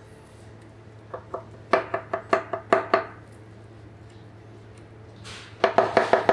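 Chef's knife chopping soft roasted aubergine on an end-grain wooden board. About a second in comes a short run of knocks, then a pause. Near the end a fast, even chopping rhythm of several strokes a second starts, each stroke with a slight ring from the blade.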